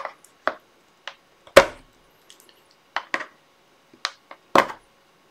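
Clips on the back of a picture frame being pushed down with a small hand tool: a series of about eight short, sharp clicks and knocks at uneven intervals, the loudest about a second and a half in and another near the end.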